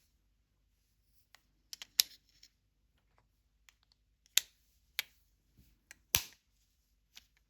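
Earbuds and their charging case being handled: a series of irregular sharp clicks and taps. The loudest come about 2, 4.4, 5 and 6 seconds in.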